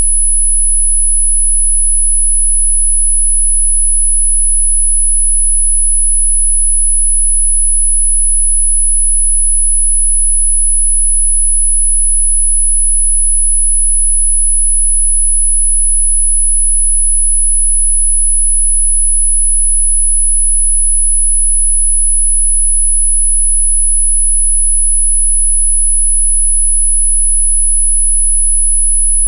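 A single electronically generated sine tone, very high-pitched and held steady without change, played as a 'healing frequency' for hiccups. A much fainter low hum lies beneath it.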